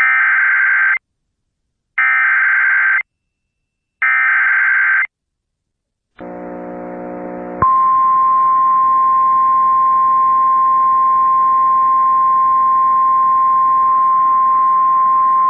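Emergency Alert System SAME header: three one-second bursts of warbling digital data tones, a second apart, then after a short silence and a brief low buzz, the steady single-pitch 1050 Hz weather alert tone sounding loud and unbroken, signalling a National Weather Service warning about to be read.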